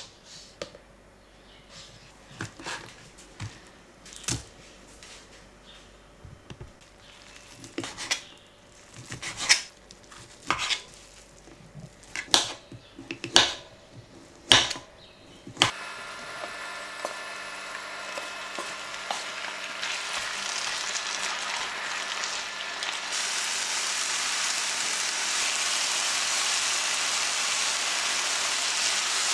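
A knife cutting food on a thin plastic cutting mat over a wooden board, in scattered sharp taps. About halfway through this gives way to a steady sizzle of noodles and fish cakes stir-frying in a pan, which grows louder.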